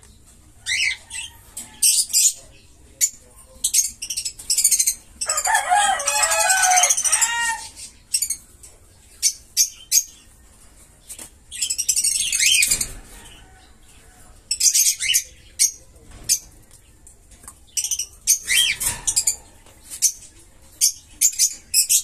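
Caged budgerigars chirping: many short, sharp, high calls scattered throughout, with a louder warbling chatter lasting about two seconds around five seconds in.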